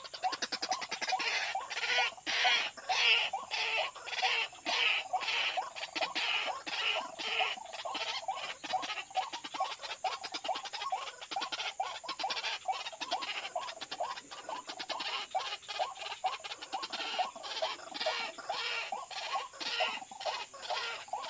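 White-breasted waterhen calls: a long run of rapid, harsh repeated notes, with louder hoarse phrases that swell and fade several times.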